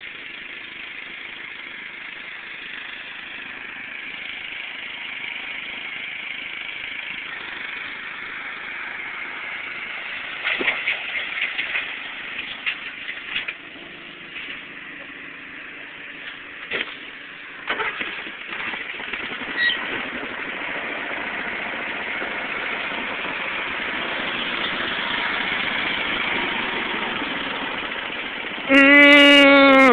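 Riding lawn mower engines running with a steady, slowly swelling drone, with scattered knocks and clatter midway through. Near the end a loud horn-like tone sounds for about a second.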